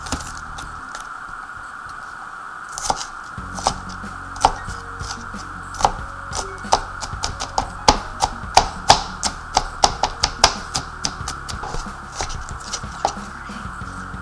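Kitchen knife chopping on a cutting board: irregular sharp knocks begin a few seconds in and come fastest around the middle, with a steady hum underneath.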